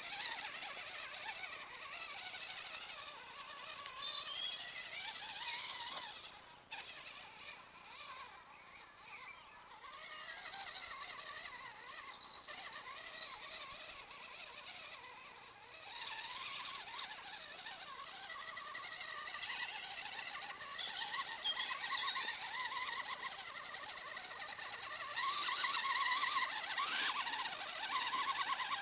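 Electric motor and gears of a Traxxas mini Summit RC crawler whining as it climbs a dirt slope, rising and falling with the throttle. It eases off for a few seconds about six seconds in and again near the middle, and is loudest near the end.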